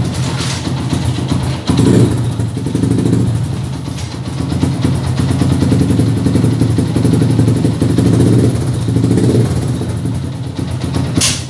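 Yamaha Jupiter MX's 135 cc four-stroke single running through a freshly fitted Proliner aftermarket muffler, with a very bassy exhaust note. The throttle is blipped about two seconds in and again around eight to nine seconds. A sharp click comes just before the end.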